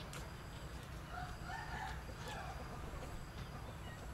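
A rooster crows faintly once, about a second in, over a steady low background rumble, with a few light clicks of a spoon against a ceramic bowl.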